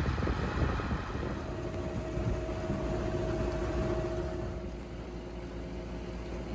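A tractor-drawn Grimme GT 170 potato harvester at work in the field: a steady low machinery rumble, with a faint steady whine that comes in about a second and a half in.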